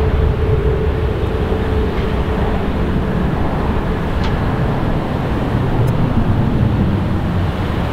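Boeing 737 airliner's jet engines rumbling as it rolls out on the runway after landing. A steady whine fades away about two and a half seconds in.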